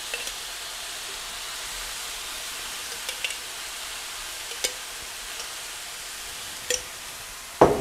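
Vegetables sizzling steadily in a hot wok, with a few light clicks of a spoon scraping thick coconut milk out of a jar into the pan, and one loud knock near the end.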